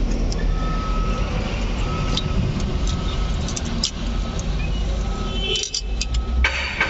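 Metal clicks of a ring spanner and feeler gauge against the rocker arms and tappet adjusting screws as a valve clearance is set, thickest near the end. Under them runs a steady low rumble like a running engine, with a few short high beeps.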